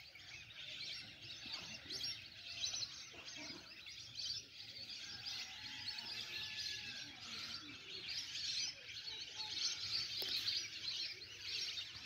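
Many birds calling at once: a continuous dense twitter of short high chirps, with no single call standing out.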